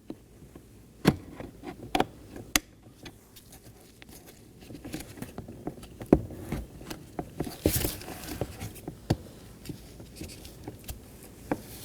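Irregular light clicks and taps, with a short rustle about eight seconds in, from handling a car's plastic interior door panel and its door-handle cable connectors.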